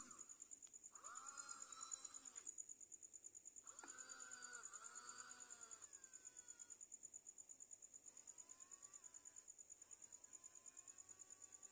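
Crickets chirping at night: a faint, steady, high, rapidly pulsing trill. Faint pitched calls that bend up and down come and go over it, mostly in the first half.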